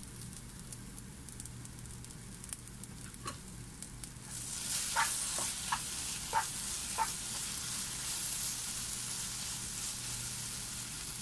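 Onion-tomato masala with curry leaves sizzling in a non-stick pan. The sizzle gets louder about four seconds in as a slotted spatula stirs it, with a few light clicks of the spatula against the pan.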